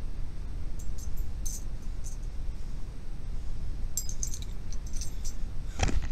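A few faint, light metallic clinks, about a second in and again a little after, then a cluster near the end, over a steady low rumble.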